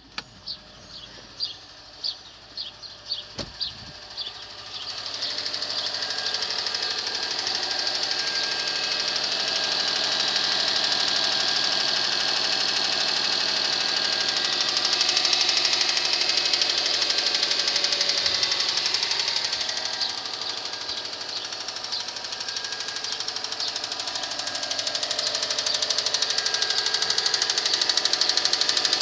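Subaru EJ25 2.5-litre turbo flat-four running cold with a knock. About a dozen sharp knocks stand out in the first few seconds, then the engine sound grows louder and steady with a fast ticking through it.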